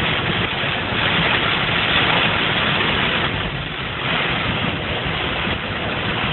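A car's engine running under a steady, dense rushing noise.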